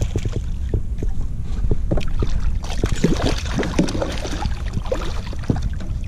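Steady wind rumble on the microphone over a kayak, with scattered small knocks and a busier stretch of water splashing and handling noise from about three to four and a half seconds in, as a small redfish is brought to the boat.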